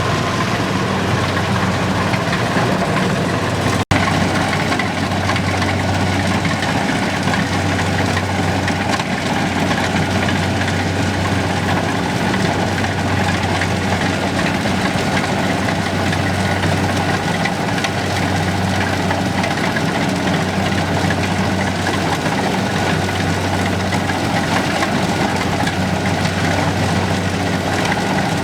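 A heavy engine running steadily at constant speed, with a low hum that pulses slowly. The sound cuts out for an instant about four seconds in.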